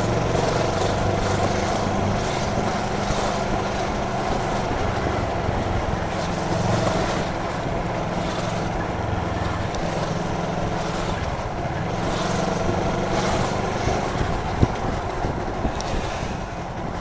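Motorcycle engine running under way, heard from a bike-mounted dashcam, with wind noise on the microphone; the engine note shifts up and down as the rider moves through traffic. One sharp click late on.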